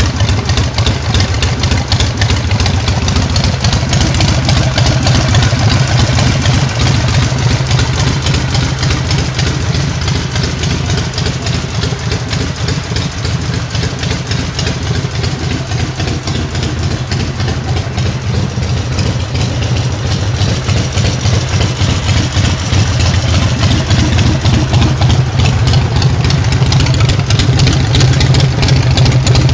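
2011 Harley-Davidson Sportster SuperLow's 883 cc air-cooled V-twin idling steadily, louder near the end right beside its twin exhaust pipes.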